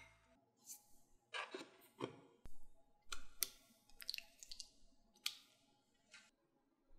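Raw chicken breasts set down into a small saucepan: a series of short, light clicks and soft slaps, spaced irregularly about once or twice a second.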